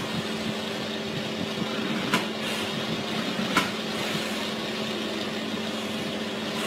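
Steady humming background noise of a store, with a sharp knock about two seconds in and another about a second and a half later.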